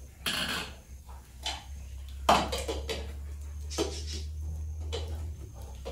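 Metal pots and pans being handled: a series of separate clanks and knocks as cookware is moved and set down, the loudest a little past two seconds in, over a steady low hum.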